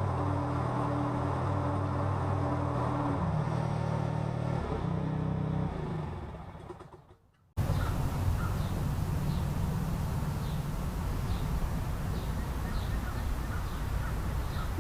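Cub Cadet lawn tractor engine running steadily, then fading out about six seconds in. After an abrupt cut, a bird chirps over and over, about once every second, over steady outdoor background noise.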